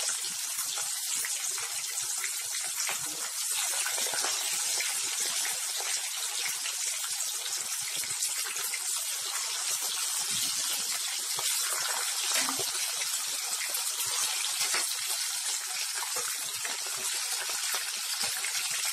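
Chicken pieces deep-frying in hot oil in a kadhai: a steady sizzle with dense crackling. This is the second fry of pieces that were half-fried earlier.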